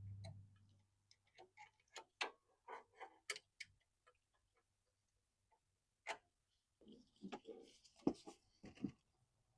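Faint, irregular metal clicks and taps of hand tools and bolts as engine mount bolts are set in and started. The clicks come in two clusters, one early and one near the end.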